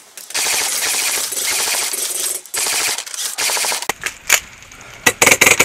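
Airsoft rifles firing sustained full-auto bursts as suppressing fire, a rapid even clatter of shots. There are two long bursts, a lull of scattered short bursts, and then heavy fire again near the end.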